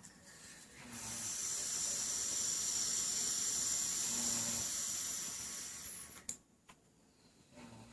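A person snoring: one long, hissing breath that swells up about a second in and fades out about five seconds later. A sharp click follows near the end.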